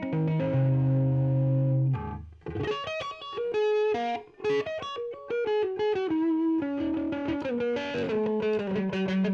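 Electric guitar played through a Donner Jet Convolution flanger pedal: a chord held for about two seconds, then a run of single notes, then more chords near the end.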